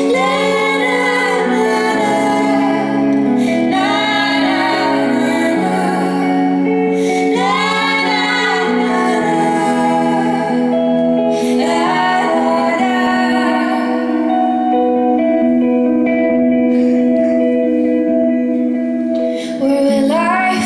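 Two women singing a slow song together over electric guitar and steady held chords, heard live in a hall. The voices sing four phrases, then drop out about two-thirds of the way through, leaving only the held chords, and come back in just before the end.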